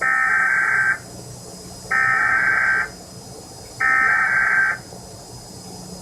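Emergency Alert System SAME header: three bursts of digital data tones, each a little under a second long and about a second apart. The coded header that opens an EAS Required Monthly Test.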